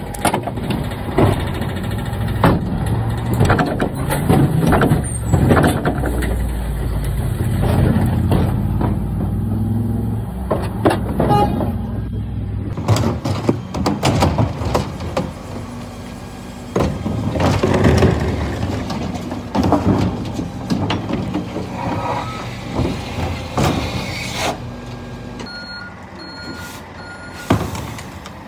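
Rear-loading refuse truck with twin bin lifts working a bin collection: the engine runs under the lift, with repeated clanks and bangs as wheelie bins are lifted and tipped. Near the end comes a short run of evenly spaced beeps.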